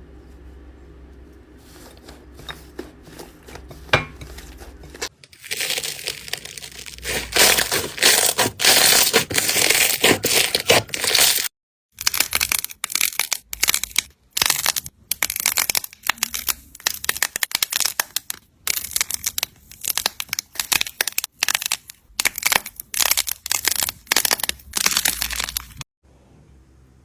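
Slime being squeezed and pressed by hand, giving dense runs of small crackles and pops. The crackling starts loud about five seconds in and breaks off abruptly twice, near the middle and near the end.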